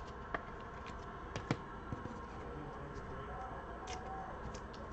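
Scattered light clicks and taps of things being handled on a tabletop, with the sharpest about a second and a half in and a few fainter ones near the end, over a low steady room hum.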